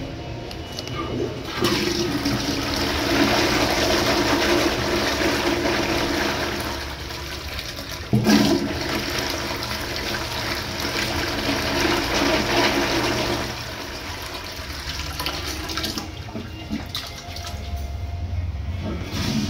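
2015 VitrA wall-hung toilet flushing automatically on its sensor: a rush of water starts about two seconds in, surges suddenly louder about eight seconds in, then dies away after about fourteen seconds.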